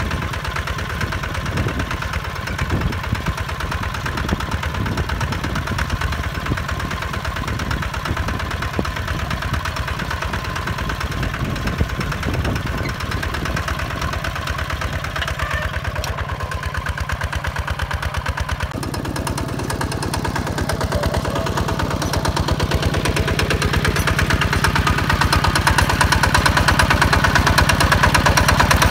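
HINOTA HG Gold 155 DI walking tractor's single-cylinder diesel engine running steadily under load as it pulls a disc plough through dry soil, with a rapid even beat of firing strokes. The sound shifts about two-thirds of the way through and grows louder toward the end.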